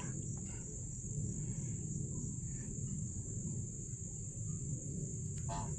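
Crickets trilling steadily as one high, unbroken tone, over a low, even background rumble.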